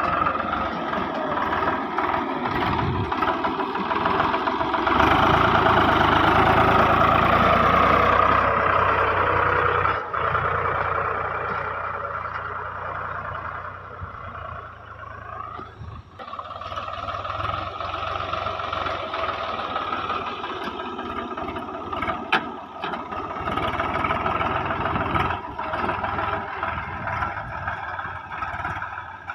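Swaraj 735 tractor's 39 hp three-cylinder diesel engine running under load as it pulls a tine cultivator through the soil. It is loudest during the first third, drops away in the middle with the engine note falling and rising again, then runs steadily, with a few sharp clanks about two-thirds of the way in.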